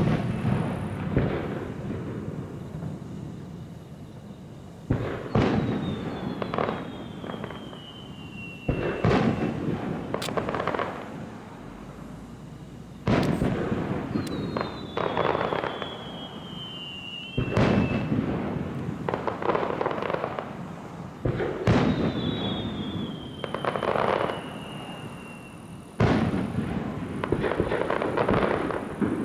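Aerial fireworks shells bursting with loud booms about every four seconds, each followed by crackling. Before several of the bursts a whistle slides down in pitch for two or three seconds.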